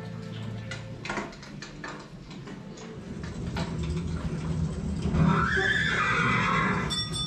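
Recorded horse whinny, the sound effect of an animatronic unicorn in a blacksmith scene: one long call from about four and a half seconds in, the loudest sound here, after a few knocks.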